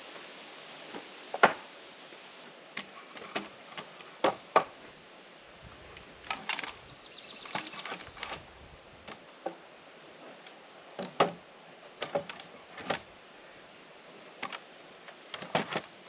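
Sawmill-cut wooden boards knocking and clattering as they are lifted, moved and set down on sawhorses: a dozen or so sharp wooden knocks at uneven intervals, the loudest about a second and a half in and again near eleven seconds.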